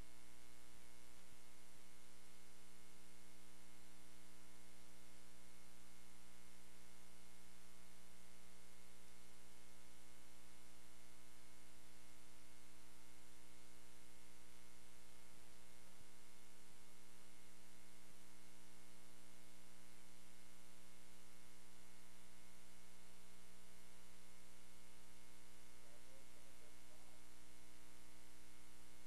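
Steady electrical mains hum with its overtones under tape hiss, unchanging throughout; no game or crowd sound comes through.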